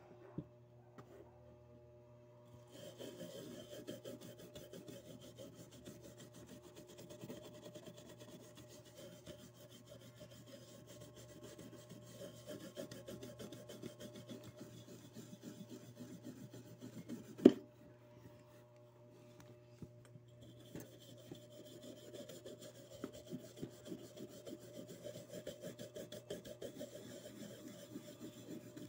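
Toothbrush bristles scrubbing metal polish over an engraved metal badge: a fast, scratchy rubbing that starts a few seconds in. A single sharp knock about two-thirds of the way through, then a short pause before the scrubbing picks up again.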